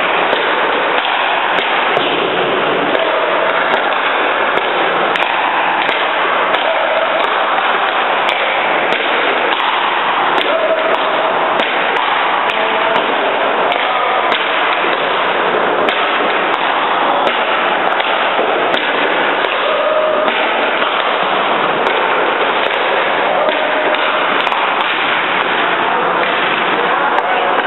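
Steady, loud indoor ice-rink din, broken by many short, sharp cracks of pucks and sticks striking the ice and boards.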